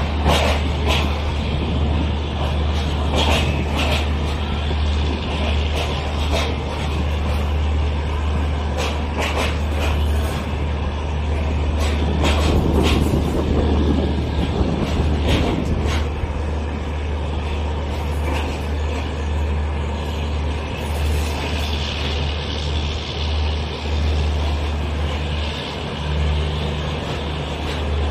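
Train noise in the gap between two passenger trains: a loud steady low drone, with scattered clanks and knocks and a louder stretch about twelve to sixteen seconds in.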